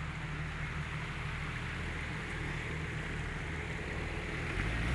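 Four-wheel-drive SUV's engine running steadily at low revs as the vehicle crawls over rocks on an off-road track.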